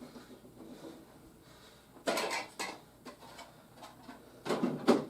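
Small hard plastic toy playset pieces clattering and knocking together as they are handled and set in place, in two short bursts: about two seconds in and again near the end.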